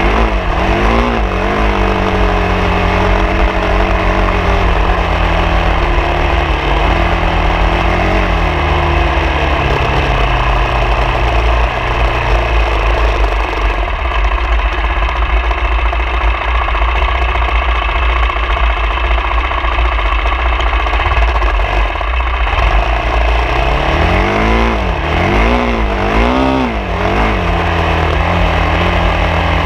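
A vehicle engine driven off-road, its pitch rising and falling as the throttle is worked, with a few quick rev-ups and drops near the end, over a constant low rumble.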